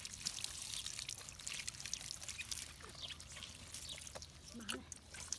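Water poured in a steady stream over a puppy's back, splashing and trickling off its wet fur as it is rinsed.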